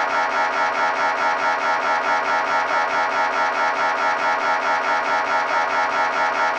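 MRI scanner running a scan sequence: its gradient coils give a loud, rapid, even pulsing with a buzzing tone that holds steady throughout.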